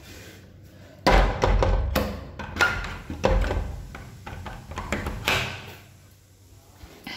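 A wooden door is pulled shut with a thud. Its metal tower bolt then rattles and is slid home, giving a string of knocks and clicks over the next few seconds.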